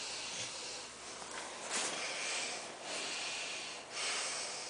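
A sleeping person snoring: a run of airy, noisy breaths about a second each, four or so in a row.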